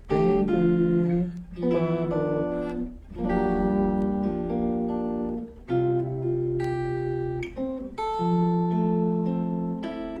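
Guitar playing a slow chord-melody passage: melody notes over a bass note with added chord tones. A new chord is plucked every second or two and left to ring.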